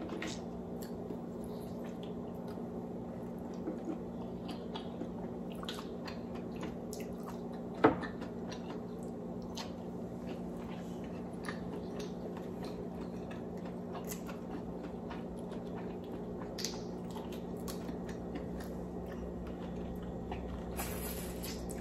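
A person eating seafood boil with her fingers: wet chewing and lip smacks, sucking sauce off her fingers, and small clicks of shell being handled, with one sharper click about eight seconds in. A steady low hum runs underneath.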